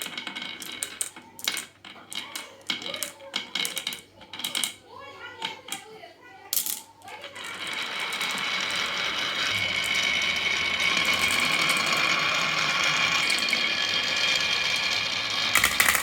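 Marbles and toy cars clacking down a wooden marble run: scattered hard clicks and knocks at first, then after about seven seconds a steady rolling rattle along the wooden track, ending in a burst of louder clacks.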